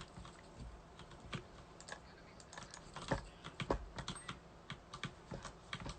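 Irregular light clicks and taps, a few a second, sounding like typing.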